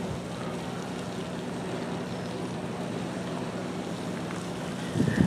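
A steady low mechanical hum held at one pitch, like a motor or engine running continuously.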